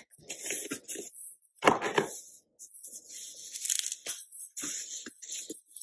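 White cardboard box inserts and tissue wrapping being handled and pulled apart: irregular rustling and crinkling, with one loud sharp crack of cardboard just under two seconds in.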